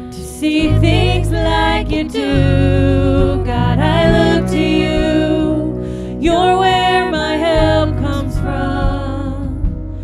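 Live worship band: women singing held melody lines over keyboard, guitar and drums. The full band comes in strongly about half a second in.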